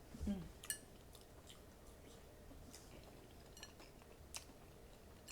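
A person chewing food, with soft wet mouth clicks and smacks scattered through, and a short hummed "mm" just at the start.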